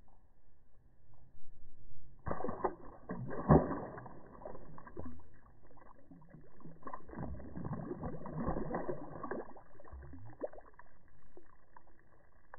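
Slowed-down audio of a small redfin splashing back into lake water: a stretched-out, low splash and sloshing that starts about two seconds in, strongest near the start, with a second spell of sloshing in the middle.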